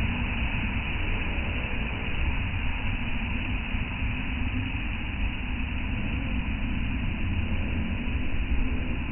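Ocean surf on a beach: a steady rumbling wash of waves, swelling a little in loudness now and then.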